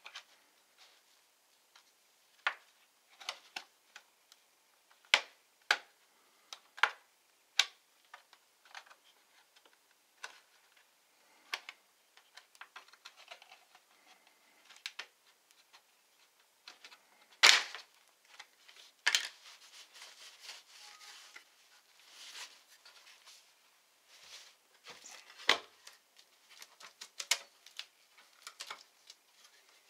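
Irregular small clicks, taps and knocks of hands and small tools handling a Lenovo Legion Y720 laptop's plastic and metal parts during a Wi-Fi card repair. The loudest knocks come a little over halfway through, followed by a short stretch of scraping, and another sharp knock comes near the end.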